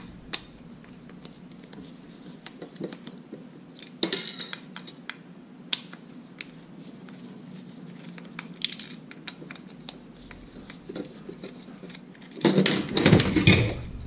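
Screwdriver working the screws that hold the motor-and-latch assembly in a Kwikset keyless deadbolt's metal chassis, with scattered small clicks and scrapes of metal and plastic. Near the end comes a louder stretch of scraping and rattling as the assembly comes loose.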